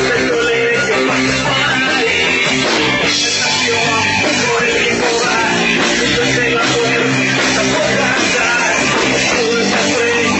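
Rock band playing live, with electric guitar and bass; loud and dense without a break.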